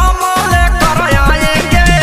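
Bhojpuri DJ remix music in an instrumental passage: a heavy bass beat about twice a second, low drum hits that drop in pitch, and a synth melody over them, with no singing.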